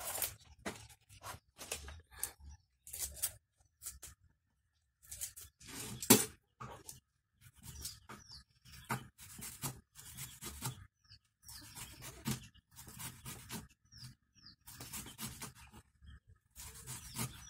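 Kale leaves torn by hand, then chopped with a knife on a wooden chopping board: a run of irregular cuts and knocks.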